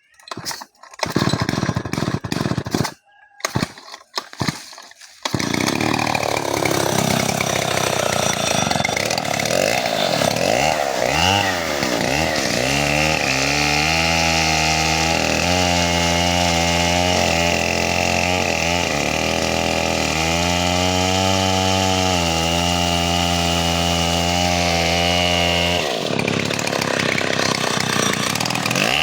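Chainsaw cutting a tree. A few short, broken bursts over the first five seconds, then it runs continuously, its pitch wavering before holding steady for about twelve seconds, then changing a few seconds before the end.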